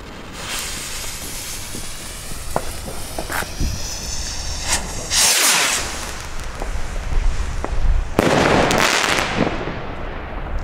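Funke silver firework rockets launching one after another, each climbing away with a whooshing hiss. The two loudest rushes come about halfway through and about eight seconds in, with a few sharp cracks in between.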